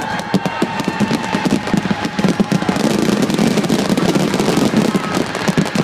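Fireworks bursting in a rapid barrage, a dense run of pops and crackles with no let-up.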